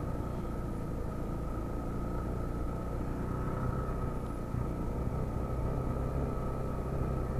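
Steady rumble of a bicycle rolling along an asphalt street, with wind on the microphone and a steady thin whine running through it.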